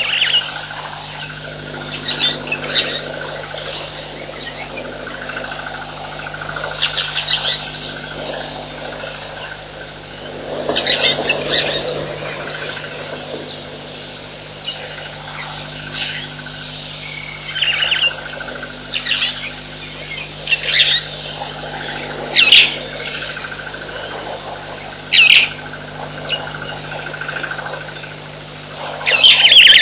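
Wild birds calling at a waterhole: short chirps and calls come every second or two, over a steady low hum. There is a louder burst of calling about a third of the way in and another near the end.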